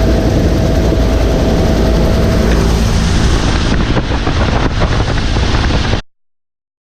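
Vietnam-era military helicopter in flight: loud, steady engine and rotor noise, cut off abruptly about six seconds in.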